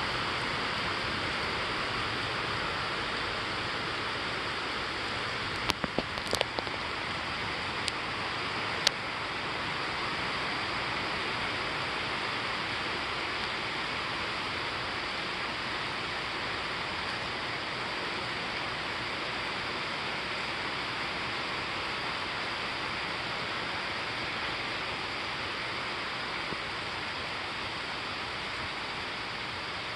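Steady rain falling during a thunderstorm, an even hiss, with a few sharp clicks about six and nine seconds in.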